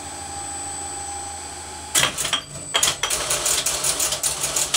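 Single-motor, 3D-printed Magnus propeller test rig running with a steady whir and a held whine. About two seconds in it breaks into a fast, irregular mechanical clatter of rapid clicks.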